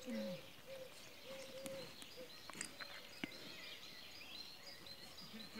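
Faint outdoor ambience with birds calling: high, quick chirps throughout and a run of short, low hooting notes repeated about twice a second in the first couple of seconds.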